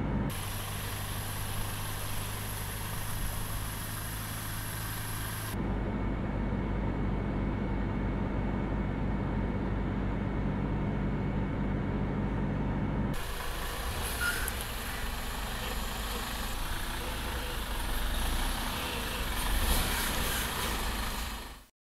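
A heavy truck running slowly: first a steady low hum heard inside the cab, then, from outside, the noise of the truck rolling up, louder near the end as it comes to a stop. The sound cuts off abruptly at the end.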